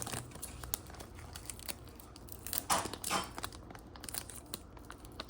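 Packaging being handled and opened: wrapping crinkling and tearing, with small clicks and rustles and two louder rustles about halfway through.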